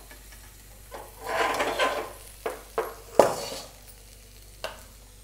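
A flat metal spatula scraping fried okra around a metal kadhai, a longer scrape about a second in, then several sharp clinks of the spatula against the pan.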